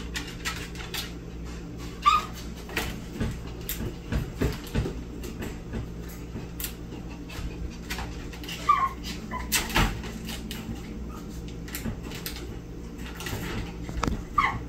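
Small dog in a wire crate giving short high barks, with the metal crate rattling and clicking in between as it jumps at the bars; the loudest barks come about two seconds in, around the middle, and near the end. The noise is the dog demanding one particular toy hanging over the crate.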